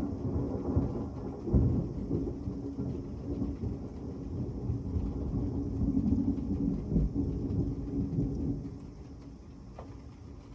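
Rolling thunder rumbling low over heavy rain, dying away about two seconds before the end and leaving the steady rain.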